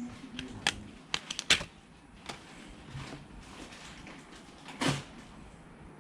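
Sharp clicks and taps of a smartphone and its hard parts being handled, several in quick succession in the first couple of seconds, then a longer, louder scraping sound near the end.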